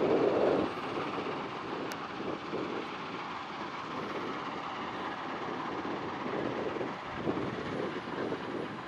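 Caterpillar 972M XE wheel loader's diesel engine working under load as the machine climbs a gravel pile and lifts its full bucket, a steady rumble slightly louder in the first half second.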